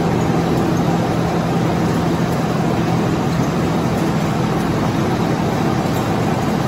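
Wire-drawing factory machinery running steadily: a constant mechanical hum with a low drone under a dense noise.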